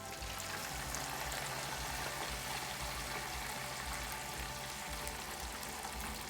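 Battered chicken tenders frying in hot oil in a deep fryer: a steady sizzling hiss full of small crackles, swelling slightly about a second in.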